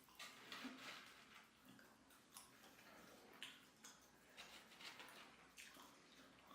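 Faint chewing: soft, irregular wet mouth clicks and smacks as someone eats a fried chicken burger.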